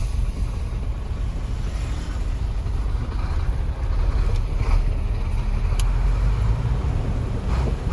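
Steady low rumble of a moving vehicle, heard from on board.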